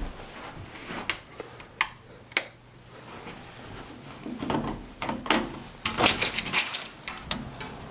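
A few sharp clicks, then a busier run of knocks and rattles in the second half, as a door out to the deck is unlatched and opened.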